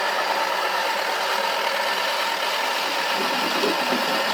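Toy washing machine running, its small electric motor making a steady hum as it turns the drum.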